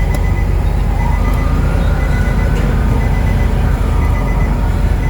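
Nissan Xterra V6 engine idling steadily, running after a crank-no-start repair.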